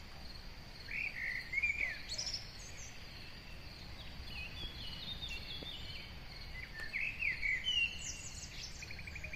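Birds chirping in the background, in short clusters of high chirps and trills, over a steady high-pitched tone.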